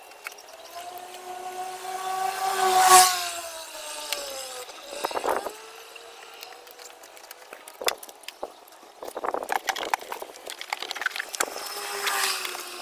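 An engine hum from a passing vehicle swells and fades about three seconds in, the loudest sound. Scattered plastic clicks and knocks follow as engine-bay parts and wiring are fitted by hand.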